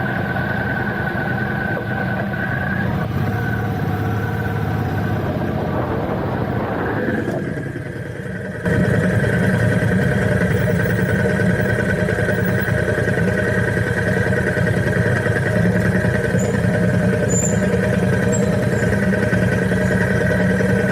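A car running, with steady engine and road noise; it drops a little and then jumps abruptly louder about eight and a half seconds in.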